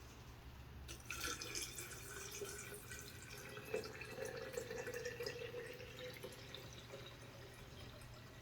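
Faint trickling and dripping of liquid with small wet clicks, as mushy, juice-soaked fruit is handled.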